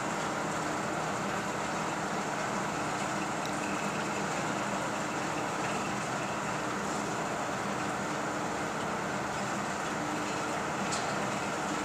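Construction material hoist running steadily while its cage travels on the mast, a constant mechanical hum with no starts or stops.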